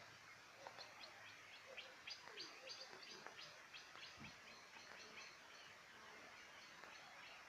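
Faint birdsong: a quick series of short, high chirps, densest in the first half and thinning toward the end.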